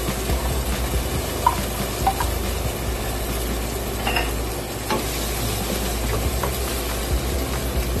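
Tomato sauce sizzling in a hot pot on a gas stove: a steady hiss with a few light clinks, and a wooden spoon stirring the sauce in the second half.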